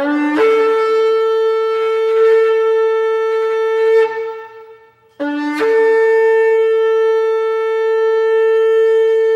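Shofar blown in two long blasts, each opening with a short lower note that jumps up to a held higher one. The first blast fades out about four seconds in; the second starts about a second later and is still sounding at the end.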